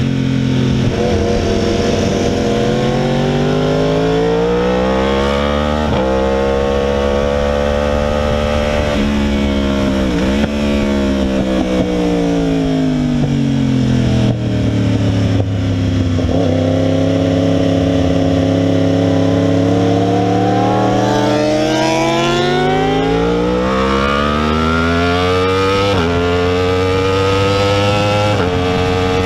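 2016 Yamaha R1's crossplane inline-four with a cat-delete exhaust, ridden hard on track. The engine pitch climbs with short breaks at upshifts early on, falls steadily with a downshift around ten seconds in as the bike slows for a corner, then climbs again through more upshifts near the end.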